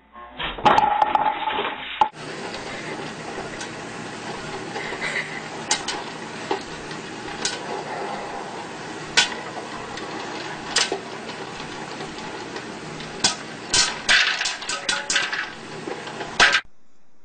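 Electric popcorn maker running with a steady whirr, and kernels popping inside its clear dome: scattered sharp pops that come thick and fast near the end. A separate loud clatter fills the first two seconds.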